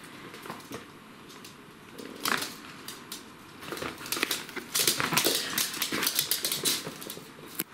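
Pomeranian puppies squabbling over a chew, with short sharp yaps and yelps and scuffling, busiest in the second half.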